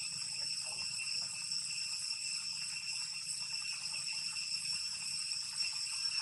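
Insects droning in the surrounding forest: a steady, high-pitched continuous whine with a couple of higher overtones, unbroken throughout.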